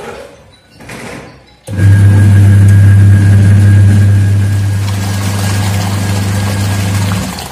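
Washing machine wash motor humming steadily, switching on abruptly about two seconds in and cutting out near the end, in the on-off pulses of a wash cycle.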